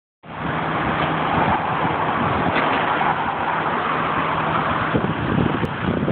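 Jet engine noise from a Boeing 767-300ER at takeoff power, a steady dense rush.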